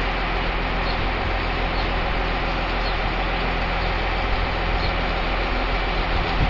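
Heavy engine idling steadily with a low, even hum.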